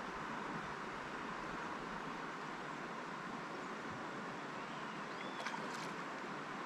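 Steady rush of river rapids, an even hiss of running water, with a few faint high chirps and clicks about five seconds in.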